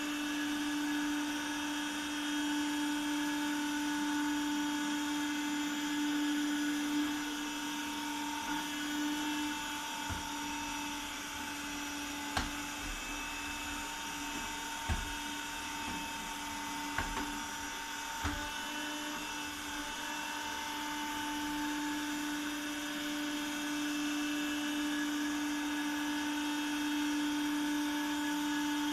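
Cop Rose window-cleaning robot's suction fan running with a steady whine as the robot crawls across the glass pane. A few short light knocks come in the middle.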